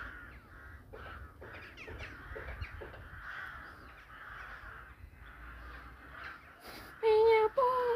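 A flock of crows cawing, with many short calls overlapping one another. About seven seconds in, a much louder, drawn-out call begins.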